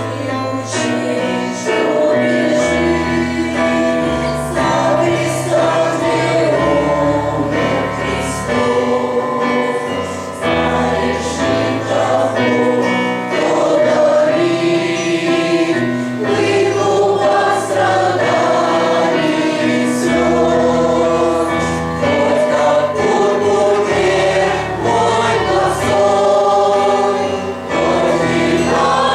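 Choir singing a hymn, several voices holding notes together in harmony.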